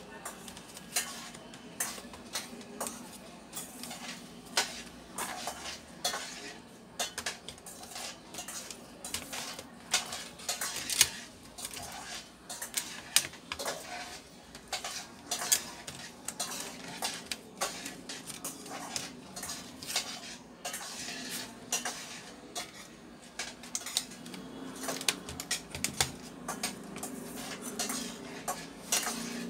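Irregular clicks, knocks and clatter of plastic laptop casing parts and small metal parts being handled as a Lenovo G450 laptop is taken apart by hand.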